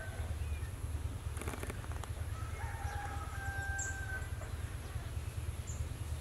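A steady low rumble with a faint, drawn-out animal call about halfway through, plus a few brief clicks.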